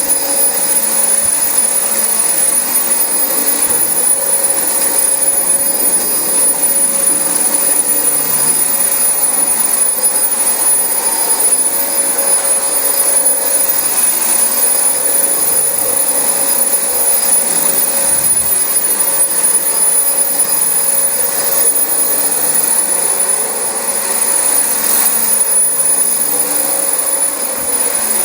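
Dyson DC25 upright bagless vacuum cleaner running steadily over carpet, its motor giving a constant rushing airflow sound with a steady high-pitched whine.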